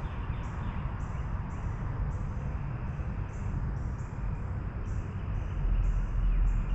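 Night insects chirping in a steady high pulse about twice a second, over a steady low rumble.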